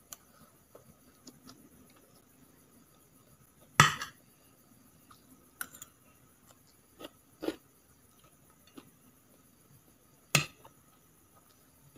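Metal fork and spoon clinking against plates of food, with two sharp, loud clinks about four and ten seconds in and a few lighter taps between.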